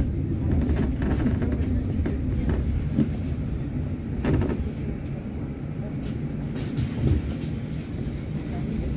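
Low, steady rumble of a city bus in motion, heard from inside, with a couple of brief knocks and rattles.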